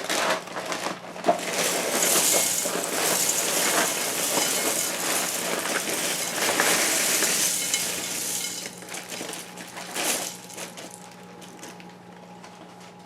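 Dry Special K vanilla almond cereal flakes being poured from the box into a large bowl: a continuous rustling patter that thins after about nine seconds and trails off.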